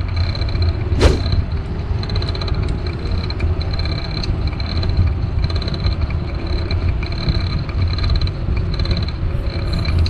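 Steady low wind rumble on the microphone and tyre noise from a bicycle rolling along a paved trail. There is one quick falling swish about a second in.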